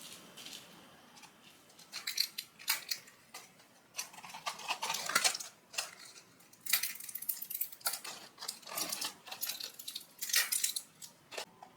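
Kitchen handling noises: irregular bursts of clinking and scraping of utensils and dishes, with short sharp clicks.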